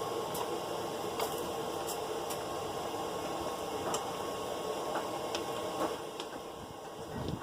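Blacksmith's forge running: a steady rushing noise with scattered faint ticks and crackles.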